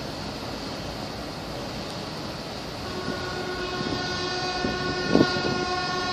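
Ship's horn sounding one long steady blast that starts about three seconds in and is still going at the end, over a steady background rush. A brief thump about five seconds in.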